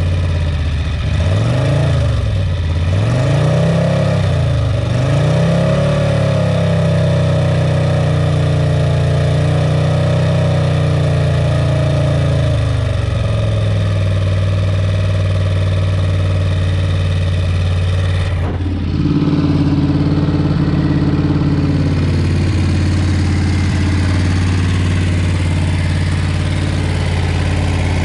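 Fully built Briggs & Stratton Vanguard V-twin (cam, pistons, roller rockers, headwork) on race fuel, running just after a cold start. It is blipped three times, held at a fast idle, and dropped back to a steady idle about thirteen seconds in, with a brief dip near eighteen seconds.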